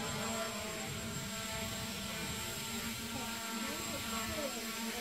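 Multirotor drone's propellers running with a steady hum, with faint voices in the background.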